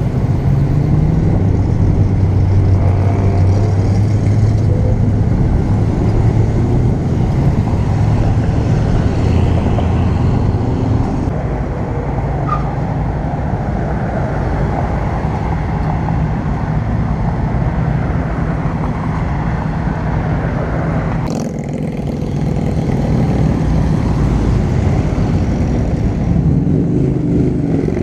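Steady, loud, low engine rumble of cars and trucks driving through an intersection, classic muscle cars among them.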